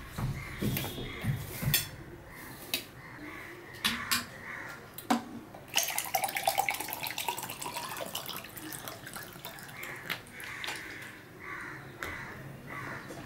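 Water poured from a plastic bottle into a drinking glass, a splashing pour of about three seconds around the middle, preceded by a few separate knocks and clicks of the glass and bottle being handled. Near the end come softer repeated sounds as he drinks from the glass.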